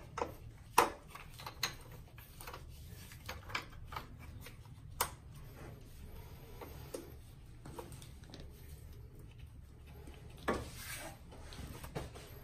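Scattered light metallic clicks and knocks from the clamp and lever parts of a Roddie R8 pipe bursting machine being handled, with a brief rustle near the end, over a low steady hum.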